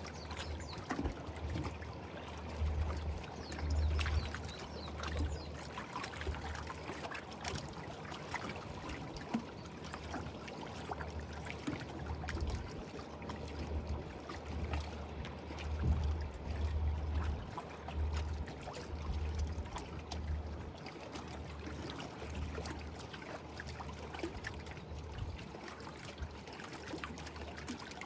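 Lake water lapping at the shore in a steady wash, over a low rumble that swells and fades every second or two.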